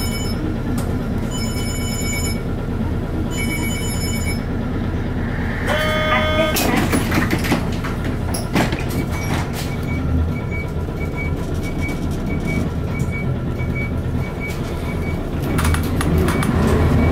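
Cabin sound of an Isuzu KC-LV city bus with its V8 diesel idling at a stop. An electronic chime sounds three times at the start and faint regular beeping follows in the middle. Near the end the engine revs up as the bus pulls away.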